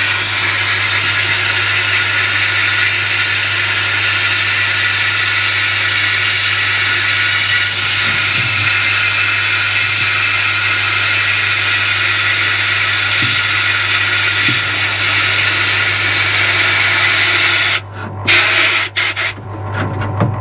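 Bead blaster in a blast cabinet hissing steadily as it strips paint from a cracked aircraft fairing, over a steady low hum. In the last couple of seconds the blast cuts off and restarts a few times.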